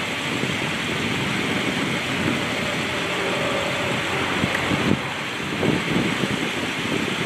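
BMW M6 Competition convertible idling with its twin-turbo V8 as the power folding roof finishes stowing, with a faint whine from the roof mechanism in the middle. Wind gusts on the microphone make uneven low rumbles throughout.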